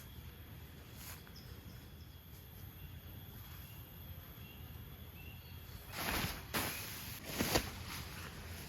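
Quiet outdoor ambience: a steady low rumble with a few faint insect-like chirps. From about six seconds in, a run of loud rustling, crunching handling noises, the loudest a sharp crackle about a second later.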